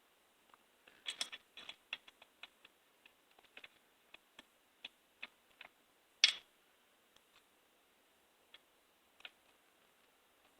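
Light clicks and taps of small plastic and metal chainsaw chain-brake parts being handled and fitted against the saw's crankcase: a quick cluster about a second in, scattered single clicks, and one sharper click a little past six seconds.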